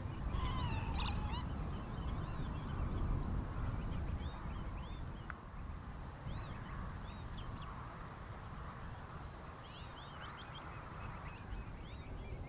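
Greylag goose giving a short gabbling call about half a second in, followed by many short, high peeping calls repeated through, over a steady low rumble.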